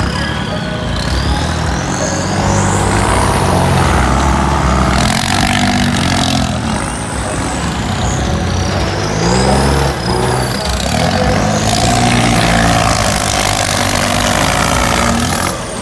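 Kubota tractors' diesel engines working hard under load as their front blades push sand, revving up in pitch several times and dropping back, through tall upright exhaust pipes.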